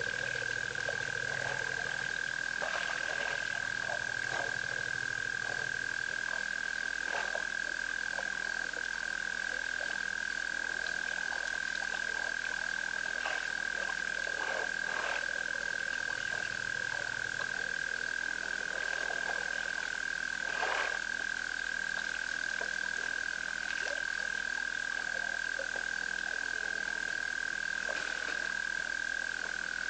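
Frog chorus at a waterhole: a steady high-pitched trill with scattered croaks and clicks over it. A low drone sounds for the first few seconds and again briefly midway.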